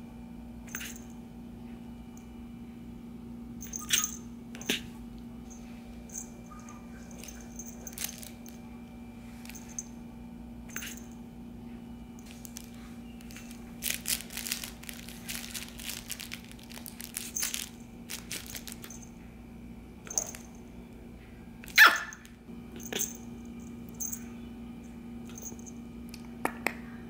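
A Shih Tzu puppy giving short, scattered yips and small barks, the loudest about two-thirds of the way through. In the middle comes a few seconds of rustling as it tumbles about on a fabric cushion bed.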